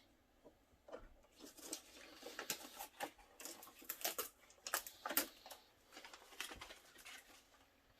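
Packaging and parts being handled during an unboxing: a run of irregular crinkles, taps and clicks.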